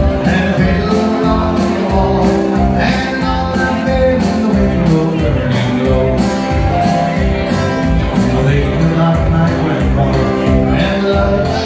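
Live country band playing an instrumental break through the PA, with a steady dance beat.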